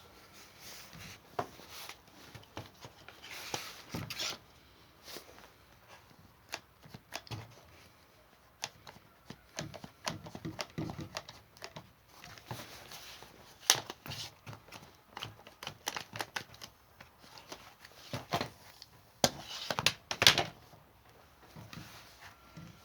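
Handling noises from a freshly patched, partly inflated rubber inner tube being moved and turned in the hands: irregular rustles and sharp clicks, loudest about 14 seconds in and again around 19 to 20 seconds.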